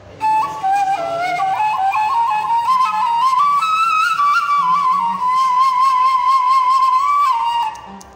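Bamboo ney (end-blown reed flute) playing a solo melodic phrase in maqam Bayati. It comes in just after the start, climbs through short notes, then holds a long wavering note before trailing off near the end.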